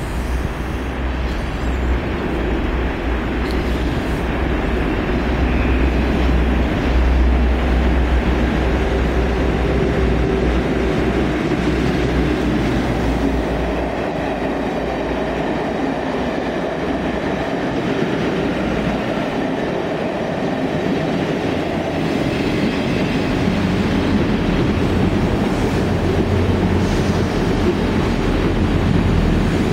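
Class 57 diesel locomotives with a rake of coaches passing through: a deep engine rumble for the first half as the leading locomotive goes by, then lighter wheel and rail noise as the coaches run past. The low rumble builds again in the last few seconds as a Class 158 diesel multiple unit draws alongside.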